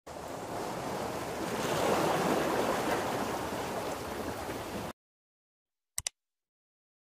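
Logo-reveal whoosh sound effect: a rushing noise that swells about two seconds in and cuts off suddenly near five seconds. About a second later comes a computer mouse click, two quick clicks, as the animated subscribe button is pressed.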